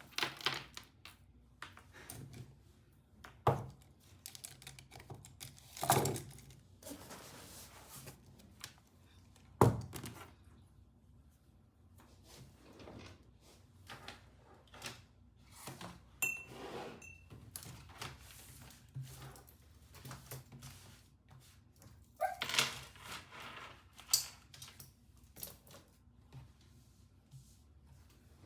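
Desk-work sounds in a small room: irregular taps, clicks and knocks of things being handled, with a few louder thunks about 3.5, 6 and 10 seconds in and some brief rustling.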